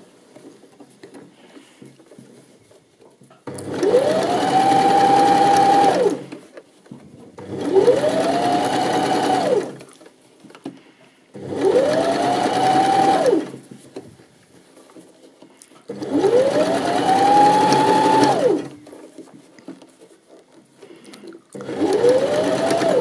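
Janome 725s sewing machine stitching in five short stop-start runs of two to three seconds each. In each run the motor whine rises quickly to a steady pitch, then cuts off. This is topstitching around a small, tight knit cuff, stopping to turn the fabric, with faint handling clicks in the pauses.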